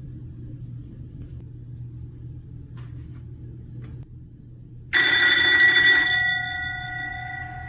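A steady low rumble and hum, then, about five seconds in, a single loud bell-like strike that rings on and fades away over the next few seconds.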